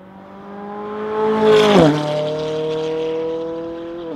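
McLaren supercar's 3.8-litre V8 accelerating toward and past, its engine note rising a little as it gets louder, then dropping sharply in pitch as it goes by just under two seconds in and fading slowly as it pulls away.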